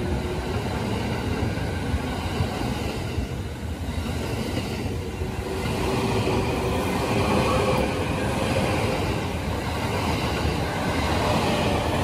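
JR East E217 series electric train moving along the platform: steady wheel-on-rail running noise, with a faint electric motor whine that climbs slowly in pitch as the train gathers speed.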